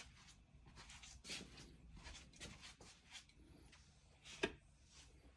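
Near silence in a small room, with scattered faint clicks and taps and one sharper click about four and a half seconds in.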